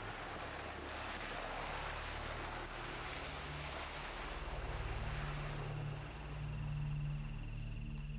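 An off-road SUV's engine running under load at low revs, its note rising and falling, while tall wet grass brushes and swishes along the side of the body; the swishing fades about halfway through.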